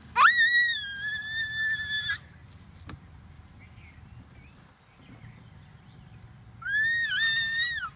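A toddler's high-pitched happy squeals. One long squeal shoots up in pitch and holds steady for about two seconds, then a second, shorter squeal comes near the end.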